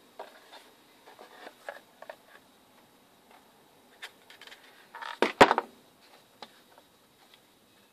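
Enzo Trapper 95 knife being slid home into its stiff leather sheath and handled, with small scraping and rustling clicks. About five seconds in come a few louder knocks as the sheathed knife meets the wooden workbench.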